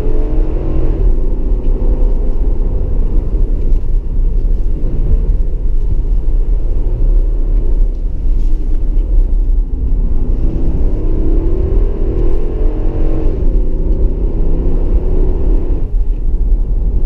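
Engine of a 2015 Infiniti QX80, its 5.6-litre VK56VD V8 heard from inside the cabin, pulling hard. The engine note climbs in pitch and falls back about a second in, then climbs again from about ten seconds in and drops near thirteen seconds, over a steady low road rumble.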